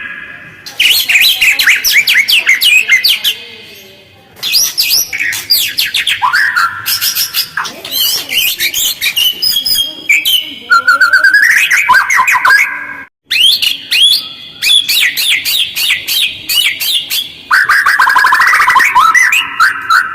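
White-rumped shama (murai batu) song: loud, fast, harsh phrases of rapid chattering trills and sweeping whistles, packed close together with only a few short pauses between bursts.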